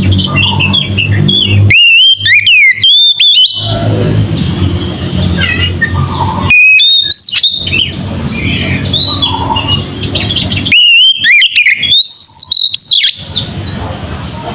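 Oriental magpie-robin (kacer) singing loudly, with three bursts of whistled notes that slide up and down between quieter stretches.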